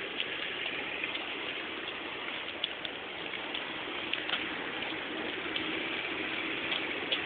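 Steady outdoor hiss with faint scattered ticks.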